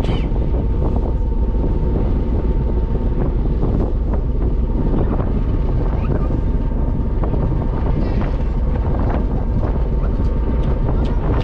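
Passenger ferry running steadily under way, its engine noise mixed with wind buffeting the microphone, and a constant hum holding one pitch.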